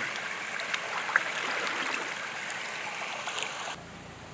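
Pond water trickling and sloshing, with small splashes, around a person moving through a swim pond. About three and a half seconds in it cuts off suddenly to a quieter, steady water sound.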